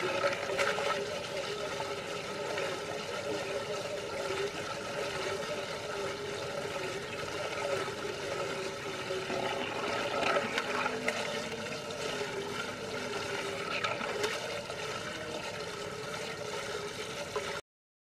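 Water swirling and gurgling as it drains down a whirlpool vortex, over a steady hum, with splashes as the toy truck tumbles at the drain hole. The sound cuts off suddenly near the end.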